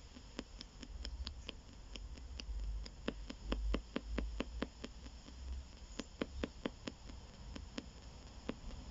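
P-SB7 spirit box sweeping the AM radio band through a small speaker: a stream of short clicks about four a second over faint static.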